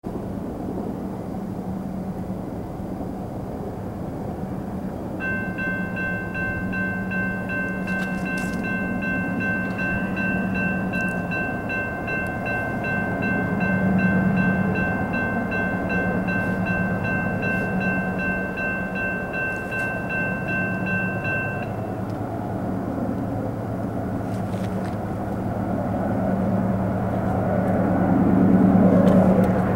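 Diesel locomotives of a CSX double-stack intermodal freight train running toward the listener. The engine rumble grows louder and is loudest near the end. About five seconds in, a steady high ringing of several tones starts and holds for about seventeen seconds, then stops.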